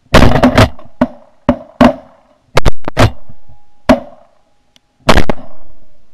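A rapid volley of about a dozen shotgun blasts from several hunters' guns, a 10-gauge Ithaca Mag 10 among them, fired at a flock of ducks passing overhead. The loudest shots come near the start, about three seconds in and about five seconds in, with fainter, more distant shots between them.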